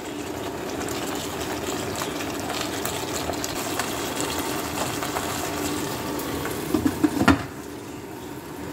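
Pasta and tomato sauce simmering and bubbling in a pot on an electric stove, with a steady crackling hiss. About seven seconds in, a few sharp clinks come as the glass lid is set on the pot, and the bubbling is quieter after that.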